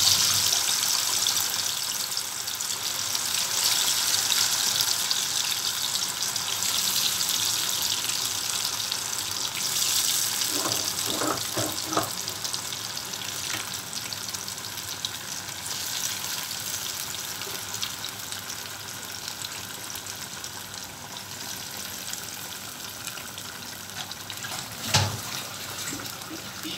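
Marinated chicken pieces deep-frying in hot oil: a loud sizzling hiss as they go into the pan, swelling again about ten seconds in, then slowly settling to a quieter, steady sizzle. A single short knock near the end.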